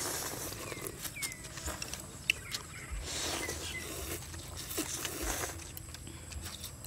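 A person slurping noodles from a bowl of noodle soup with chopsticks: noisy slurps at the start, around three seconds in, and again about five seconds in, with small clicks between them.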